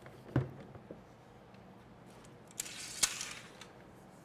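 A dull thump as a rack-mount server node is set down on a wooden table, then about two and a half seconds in a short metallic scrape ending in a click from the sliding rack rail being handled.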